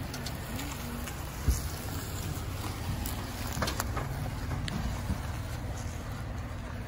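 Chevrolet Colorado pickup's engine idling with a steady low hum, with wind on the microphone and footsteps through dry grass; one sharp thump about a second and a half in.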